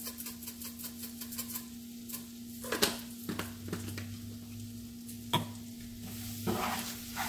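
Shredded pork sizzling lightly in a nonstick frying pan while a wooden spoon stirs and scrapes through it. There is a quick run of small ticks in the first couple of seconds, then a few sharper knocks of the spoon against the pan.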